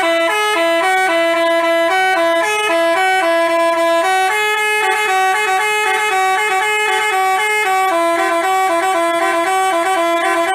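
Telolet bus horn, a Basuri-style multi-tone electric horn, playing a quick tune of stepped notes that jump up and down in pitch. It plays loudly and without a break.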